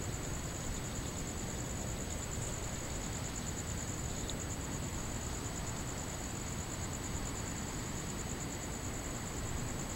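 Crickets trilling in a steady, rapidly pulsing high-pitched chorus over a constant low rumble of background noise.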